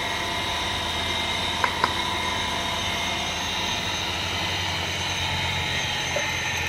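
Electric motor spinning a sanding drum, running steadily with a hum and whine, with no wood against it. Two light ticks come a little under two seconds in.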